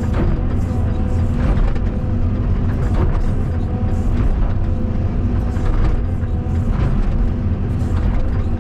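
Caterpillar 320D2 hydraulic excavator's diesel engine running steadily under working load while digging, with a few short scrapes or knocks from the bucket working the soil.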